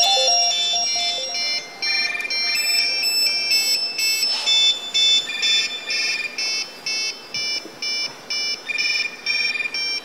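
Many mobile phones ringing together with simple high-pitched electronic ringtones, a chorus of beeping tones that pulses on and off at about two a second, cutting off suddenly at the end.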